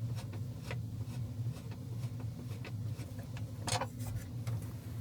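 Faint, irregular clicks and small scrapes of a screw being undone with a hand tool from a dashboard panel, with a sharper click near the end. A low steady hum runs underneath.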